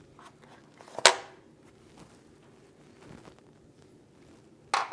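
Foam insulation being pulled out of an electric water heater's thermostat compartment: faint rustling, with one sharp snap about a second in and a shorter one near the end.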